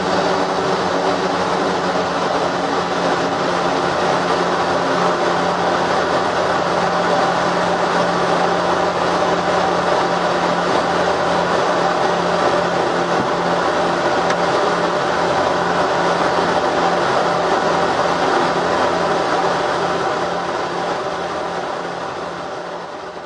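Twin turboprop engines and propellers of a CalFire S-2T air tanker running steadily at low power on the ground, heard inside the cockpit as an even drone with a steady low hum. The sound fades away over the last few seconds.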